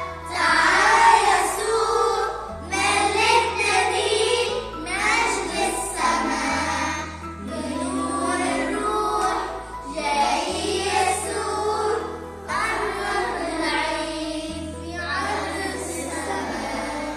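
Voices singing a song over an instrumental backing whose bass note changes about every two seconds.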